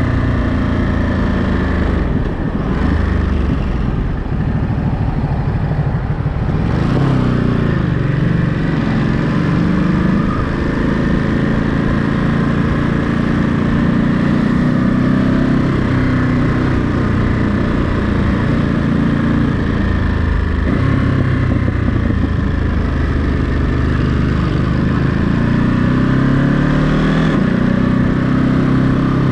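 Ducati Monster 937's 937 cc L-twin engine running on the road, its pitch rising and falling several times as the rider rolls on and off the throttle, with a rise near the end.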